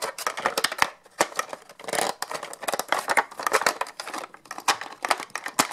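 Hard plastic toy parts clicking and knocking as a seat with a figure in it is fitted back into a plastic toy race car, a quick, irregular series of small clicks.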